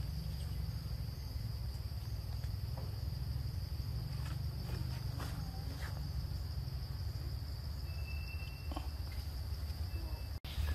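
Steady high-pitched drone of forest insects over a low rumble, with a few faint rustles and snaps. The sound drops out for a moment near the end.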